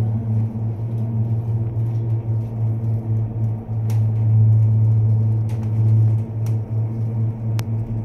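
Steady low hum inside a moving TELEO cable car cabin, with a few sharp ticks in the second half.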